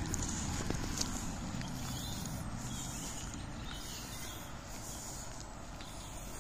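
Footsteps crunching along a dirt and bark-chip path, a few light steps heard near the start, over a steady low rumble.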